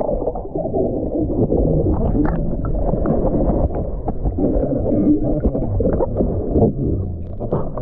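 Muffled sloshing and bubbling of pool water stirred by swimmers, heard from underwater, with scattered small knocks.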